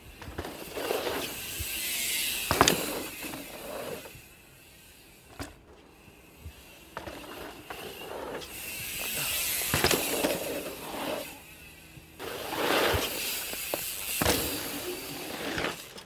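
Enduro mountain bike ridden through a dirt-jump line: knobby tyres rushing over packed dirt in repeated swells, with sharp thuds from landings, the loudest about two and a half seconds in.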